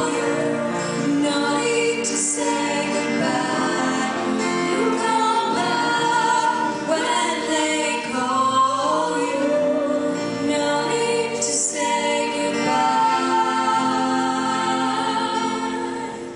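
A group of voices singing together in sustained, choir-like chords.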